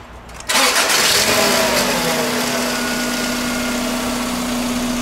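Subaru 2.2-litre boxer four-cylinder engine starting up about half a second in. It settles from a brief start-up flare into a steady idle with a steady hum. The engine is healthy, with no exhaust restriction.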